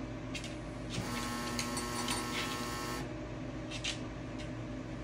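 Grand Teton pellet stove running with a steady fan hum. About a second in, a small motor whirs with a few sharp ticks for about two seconds, then stops: the auger feeding pellets into the burn pot.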